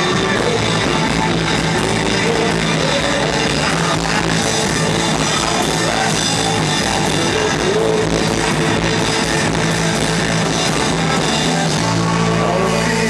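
Live rock band playing, loud and distorted: electric guitars over a drum kit, heard through the PA. About a second before the end the music thins to held guitar notes.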